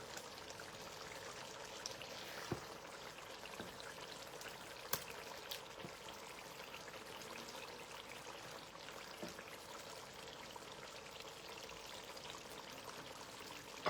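Faint, steady sizzling hiss of a pot of spinach stew simmering, with a few light clicks.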